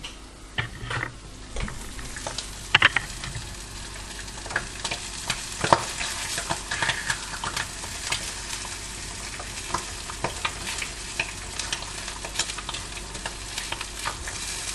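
Bacon, salami and tomatoes sizzling in a frying pan on a gas hob. A spatula scrapes and taps against the pan as the food is stirred, with the sharpest clicks about three and six seconds in.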